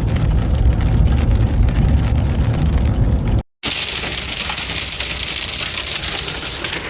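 Storm noise from a vehicle on the highway: a heavy low rumble for about three and a half seconds, then, after an abrupt cut, a dense hissing patter of rain and hail.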